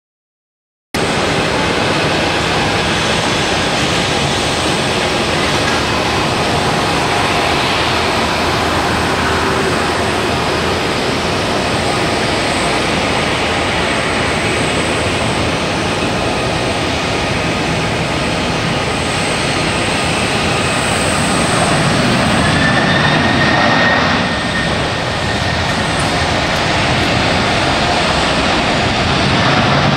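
Boeing 767 airliner's jet engines running, a loud, steady rush of jet noise that cuts in about a second in. A thin whine shows briefly about two-thirds of the way through.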